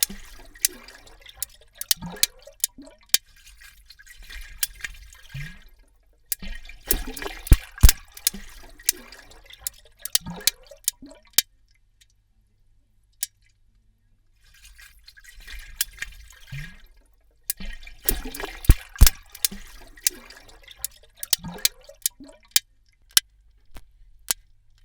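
Rig sharks clicking, recorded underwater: sharp, irregular clicks over bubbling, gurgling water. The clicking comes in three runs, with a pause of about three seconds near the middle that holds only a single click.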